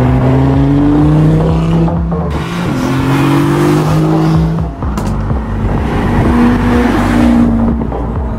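Sports car engine accelerating hard, its pitch climbing steadily in long pulls and dropping twice at upshifts.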